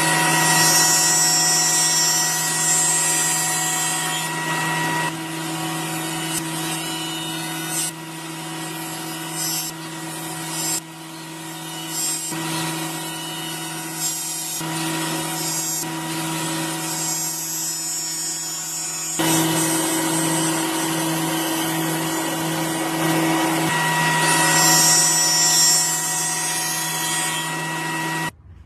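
Electric wood router running at high speed and cutting a recess into wood: a steady high motor whine with rough cutting noise that swells and eases as the bit bites, cutting off sharply near the end.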